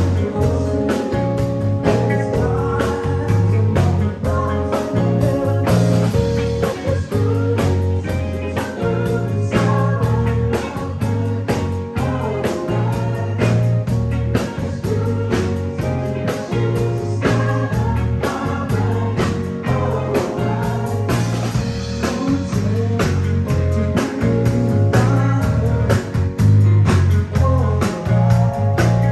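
Live band playing a blues-rock song: a steady drum beat, bass and guitar, with singing.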